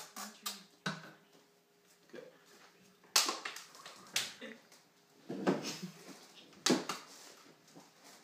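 A few sharp slaps and taps spread through the room, with short bursts of muffled laughter from people holding water in their mouths.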